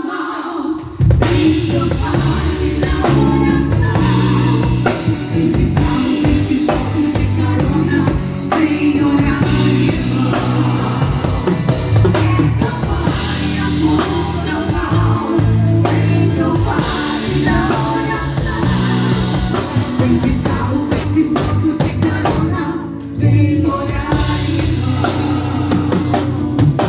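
A band with drum kit and bass accompanies singers in a worship song, vocals over a steady drum beat.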